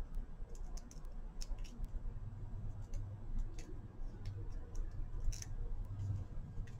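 Faint, irregular light clicks and taps of a small hand tool and paper pieces being handled on a craft mat, over a low steady hum.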